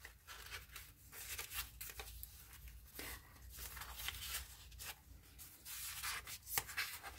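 Faint rustling and rubbing of paper: vintage ticket stubs are slid and straightened under a paper clip, then a page of a handmade paper junk journal is lifted and turned. There are short scratchy rustles throughout, with a few sharper ticks about three seconds in and near the end.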